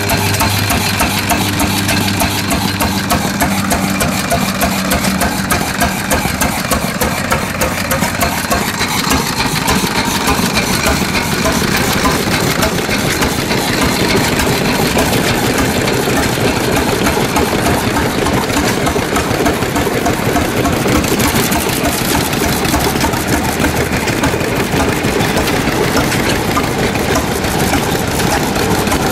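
Antique engine running with a dense, rapid, steady clatter. A low humming tone fades out in the first few seconds.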